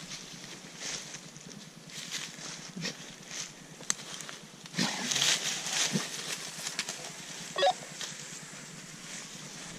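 Rustling through leafy undergrowth and dry leaf litter, with footsteps, as a leashed tracking dog works a wounded deer's trail and its handler follows. A short squeak comes about three-quarters of the way through.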